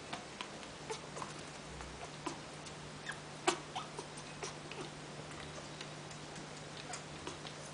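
Irregular small clicks and taps from an African grey parrot, one louder tap about three and a half seconds in, over a faint steady hum that starts about a second in.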